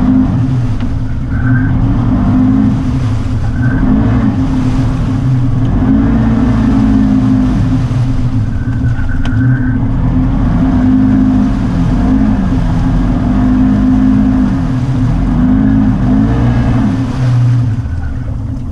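ATV engine revving up and down again and again as the machine works through a deep mud hole.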